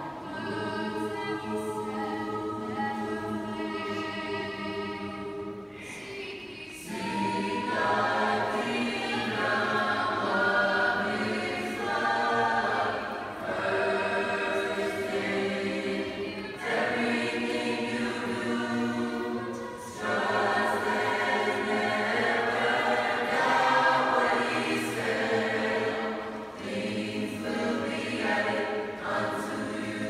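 A mixed school choir of boys' and girls' voices singing together in a church, holding chords in phrases a few seconds long with brief breaks between them.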